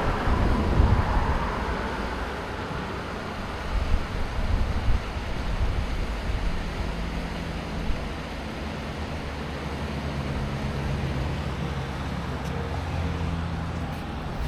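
Road traffic: a vehicle goes by in the first couple of seconds, then a steady low engine hum over the general traffic noise.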